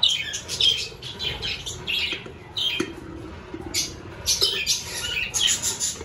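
A flock of budgerigars chattering, with many short, high chirps and squawks overlapping in an irregular stream.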